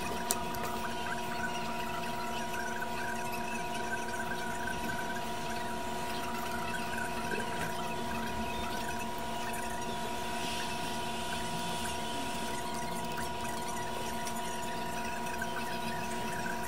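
A steady hum made of several steady tones over a hiss, unchanging throughout.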